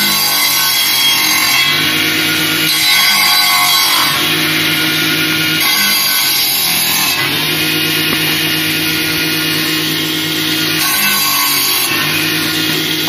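Electric circular saw bench running and cutting firewood branches: the motor's steady hum gives way to a screeching cut several times as each branch is pushed through the blade, then returns between cuts.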